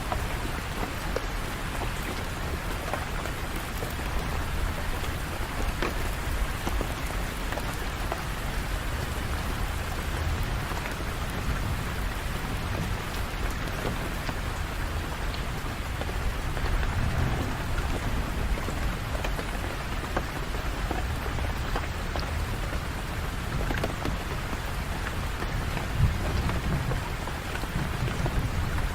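Steady rain falling, with low rumbles of thunder, the strongest near the end.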